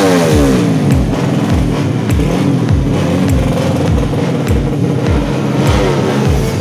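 Electronic dance music with a thumping kick drum about twice a second over a held bass line.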